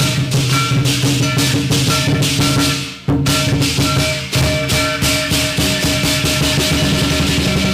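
Southern Chinese lion dance percussion: the big lion drum beaten in a fast, steady beat with crashing cymbals and ringing gong. The playing breaks off for a moment about three seconds in, then resumes.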